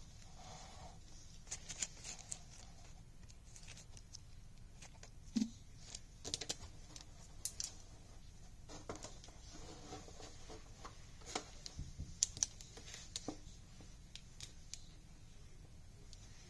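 Faux fur and a fabric lampshade being handled and worked by hand: scattered light clicks, taps and rustles at an irregular pace, with a few sharper taps.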